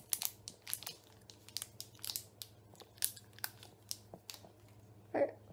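Faint, scattered crinkles and clicks of a gummy eyeball sweet being bitten and eaten close to the microphone, with its packet handled. A brief vocal sound comes about five seconds in.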